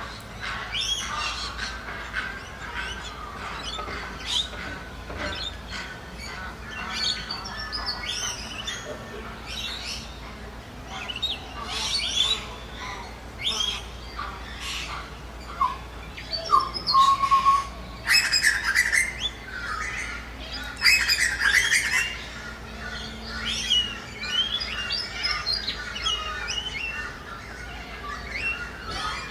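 Many birds calling at once in a dense, continuous chorus of short chirps and squawking calls, with a couple of louder outbursts of calling past the middle.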